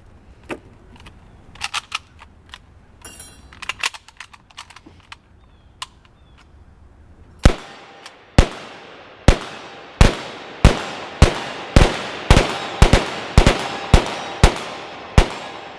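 Two Yugoslavian M59/66 SKS semi-automatic rifles firing 7.62×39 mm rounds: about fourteen sharp shots, beginning about halfway in and coming faster toward the end as both shooters fire together, each shot followed by a short echo. Before the shooting, light metal clicks and a brief rattle as the rifles are loaded from stripper clips.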